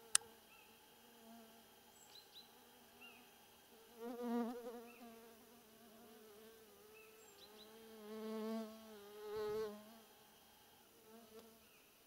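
A flying insect buzzing close to the microphone. The steady, wavering drone grows loud twice, around four seconds in and again about eight to ten seconds in.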